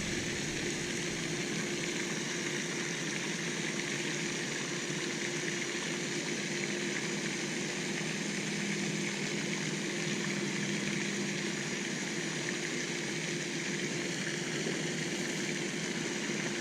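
Steady background hiss with a faint constant hum underneath, unchanging and without distinct events.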